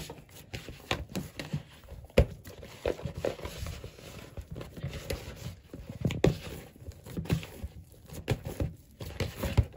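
Pizza dough being mixed and kneaded by hand in a plastic bowl: irregular soft knocks and squishing, rubbing noises of the hand working flour and dough, with a few louder thumps about two and six seconds in.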